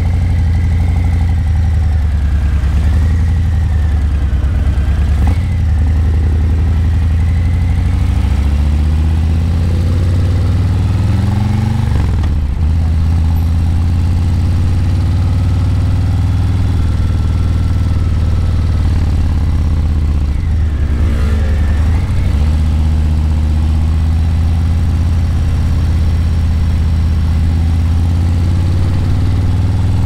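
Harley-Davidson Breakout 117's Milwaukee-Eight 117 V-twin running through Vance & Hines Eliminator 300 slip-on mufflers, a loud, deep exhaust note at cruising revs. The revs climb and then drop off around ten to twelve seconds in, and dip and pick up again about twenty-one seconds in.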